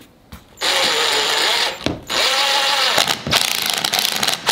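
Cordless driver driving a 2-inch screw into plywood: two short runs of the motor spinning up and down, then a fast run of clicks as the screw is driven home.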